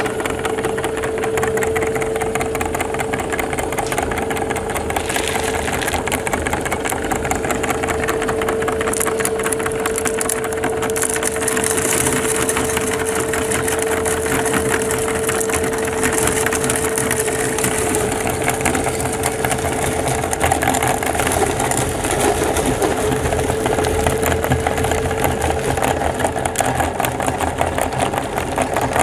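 Electric meat grinder switched on suddenly and running with a steady motor hum, while hard mint candies crunch and crackle as they are crushed through it.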